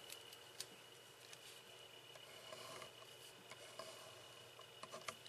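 Faint scratching of a pen drawing lines on paper, with a few soft ticks and taps of the pen.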